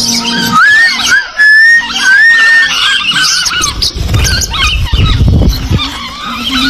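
Small birds chirping and chattering, with several high whistled glides in the first three seconds. A low rumbling noise sits under the calls from about four to six seconds in.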